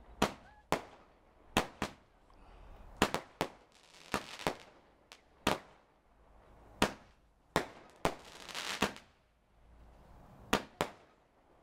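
'Astronomy' consumer firework cake firing: about fifteen sharp bangs from its shots bursting overhead, irregularly spaced, with hissing between some of them.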